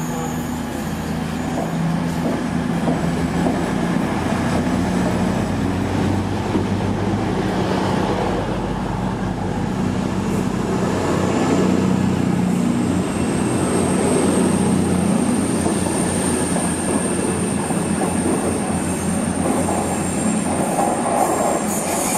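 A Cross Country Class 220 Voyager diesel multiple unit passing through a station, its underfloor diesel engines running over a dense rumble and clatter of wheels on rail. A thin, high whine joins about halfway through and carries on to the end.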